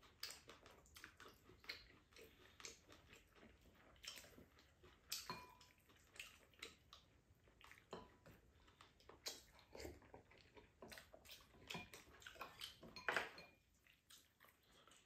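Faint, scattered clicks and taps of wooden spoons and chopsticks against ceramic bowls and a pan while eating, with a louder knock near the end.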